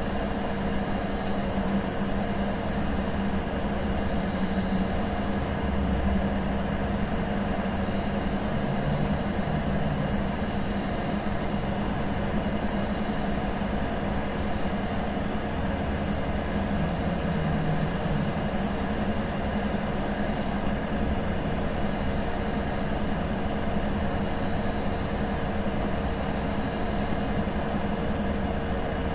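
Budget hot-air rework station blowing steadily on a low airflow setting (air 3, 380 °C) over a phone's CPU chip to melt its solder: a constant airy hiss with a steady low hum from its fan.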